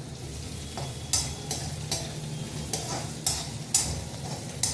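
A spatula stirring cumin seeds, peppercorns, ginger and green chillies frying in ghee and oil in a kadai: irregular scraping strokes about twice a second over a light sizzle. A steady low hum runs underneath.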